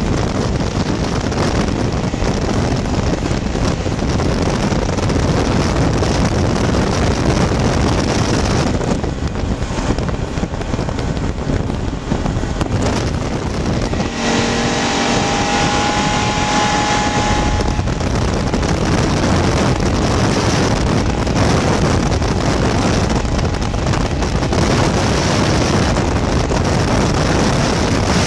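Ski-Doo snowmobile running along the trail at speed, its engine and track noise mixed with wind rushing over the microphone. About halfway through, a steady engine tone stands out clearly for a few seconds.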